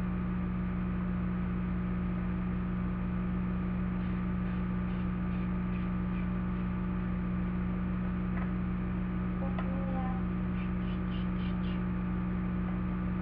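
Steady low electrical hum, with a few faint taps and scrapes of small plastic toys being handled.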